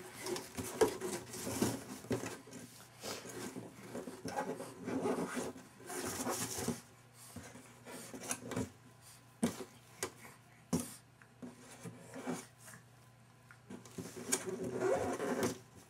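A large cardboard diaper box being patted, pushed and scraped by a baby's hands, giving irregular taps, knocks and rubbing scrapes.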